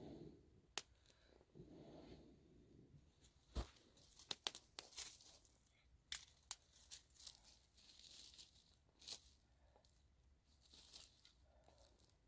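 Faint blowing on a smouldering campfire, two soft breaths in the first couple of seconds, followed by scattered quick crackles and snaps from the fire and twigs for several seconds.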